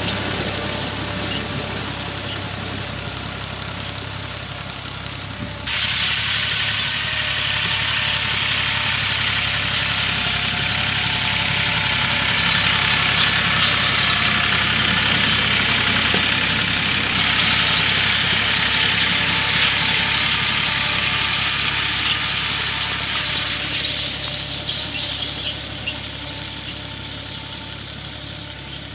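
Massey Ferguson 260 tractor's diesel engine running steadily while pulling a disc harrow through dry, ploughed soil. A loud rushing noise comes in suddenly about six seconds in over the engine and fades near the end.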